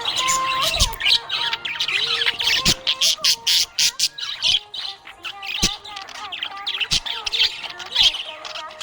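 Budgerigars chirping and chattering: a dense run of quick sharp chirps and clicks mixed with warbling, gliding notes.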